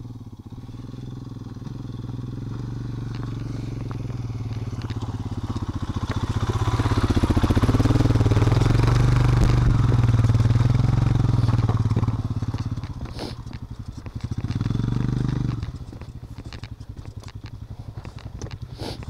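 Single-cylinder off-road motorcycle engine running. It gets louder over the first several seconds and is loudest from about eight to twelve seconds in, then eases off, rises briefly once more near fifteen seconds, and settles lower.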